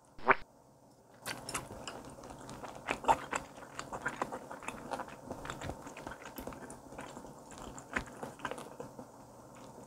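Close-miked chewing of a piece of raw tuna belly sashimi (the navel cut), a steady run of small wet mouth clicks and crunches from the firm, crunchy part in the middle of the cut.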